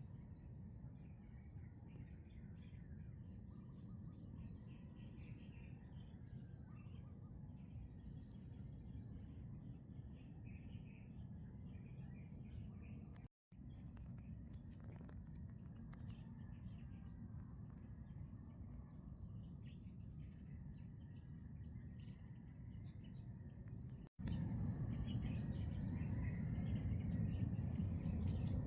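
Steady chorus of crickets and other insects, a continuous high trilling, over a low outdoor rumble. The sound drops out briefly twice, and for the last few seconds the low rumble is louder.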